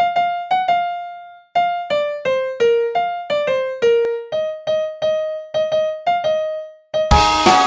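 Music: an electric keyboard plays a melody one note at a time, each note struck and then fading away. About seven seconds in, the full band crashes in loud with drums and guitars.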